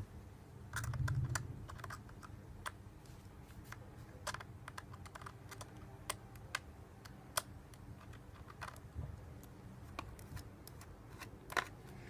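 Small precision screwdriver working a screw out of a laptop's aluminium bottom case: scattered light clicks and ticks of metal on metal, with a dull low thump about a second in.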